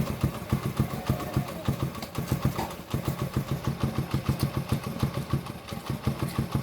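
An engine idling with a rapid, uneven low pulse of about eight to ten beats a second.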